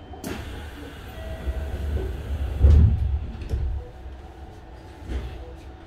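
Hanshin 5001-series train car standing at a platform: a sharp click, then a heavy low thud about three seconds in and lighter knocks after, from the sliding doors on the far side of the car closing.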